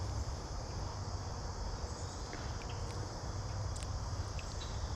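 Steady chorus of insects such as crickets, with a low rumble underneath and a few faint small clicks.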